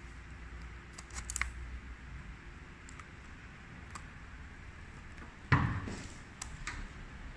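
Handling noise of a roll of clear tape on a glass tabletop: a few small clicks and rustles, then a sharp knock about five and a half seconds in, the loudest sound, followed by a couple of lighter ticks. A low steady hum runs underneath.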